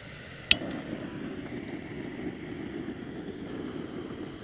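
Canister gas stove being lit: one sharp ignition click about half a second in, then the burner catching and running with a steady low rushing sound.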